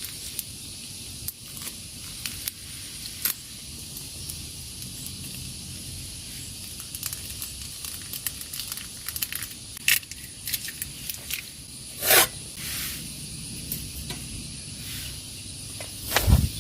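Campfire cooking sounds: a steady hiss with scattered crackles and small clicks, a louder scrape about twelve seconds in and a low thump near the end.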